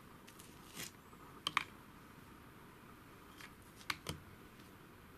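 A few light clicks and taps, spaced out over several seconds, as a small LiPo battery pack is handled and set down on a digital pocket scale: one about a second in, a quick pair a little later, another pair near the end.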